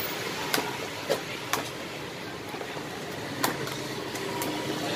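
Several sharp clicks of a ladle knocking against the batter pots as martabak batter is scooped up and poured back, over a steady hum of street traffic.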